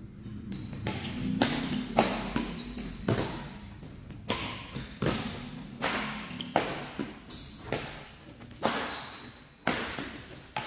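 Badminton rackets striking the shuttlecock again and again in a fast doubles rally, about a dozen sharp hits roughly a second apart, each echoing in the hall. Short high squeaks come between some of the hits.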